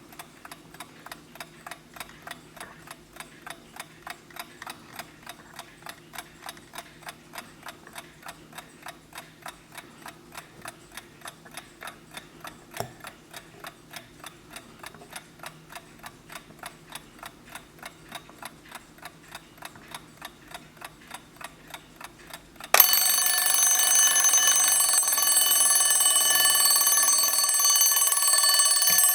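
Vintage Wehrle Sanssouci wind-up alarm clock ticking evenly at about four beats a second, then its alarm bell going off about 23 seconds in and ringing loudly and continuously.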